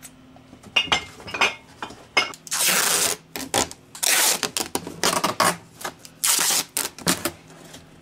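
Packing tape being pulled off the roll in several long rips, each about half a second, with shorter rips and taps as the strips are pressed onto a cardboard box.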